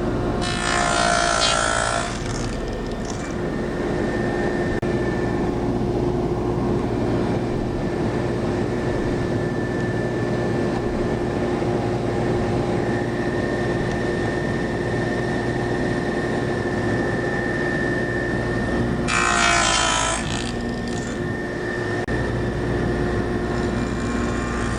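A power tool running steadily at speed while cutting box-joint notches in 3/4-inch marine plywood, with two louder cutting passes: one just after the start and one near the end.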